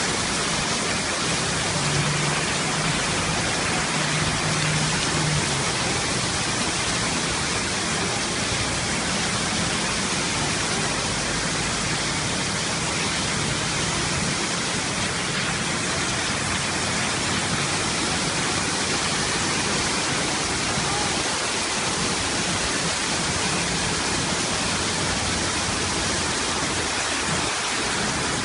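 Waterfall, falling water rushing steadily.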